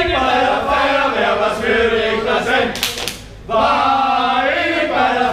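A group of voices chanting or singing together in unison, with a brief break and a short hiss about three seconds in.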